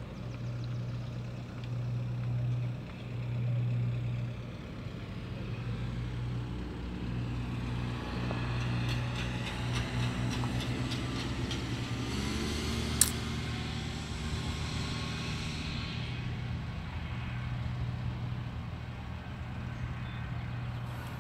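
Engine of a Marine Travelift boat hoist running steadily under the load of a cabin cruiser, its hum dropping in pitch about twelve seconds in. A single sharp click about thirteen seconds in.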